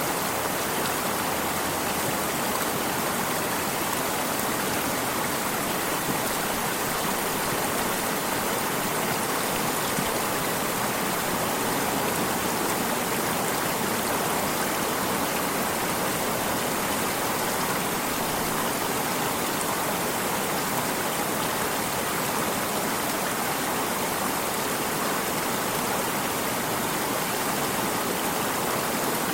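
Stream of water flowing, a steady even rushing that does not change.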